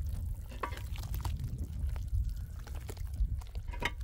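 Wet cement mortar being squeezed and kneaded by hand in a steel wheelbarrow: wet squelching with a few short scrapes and clicks.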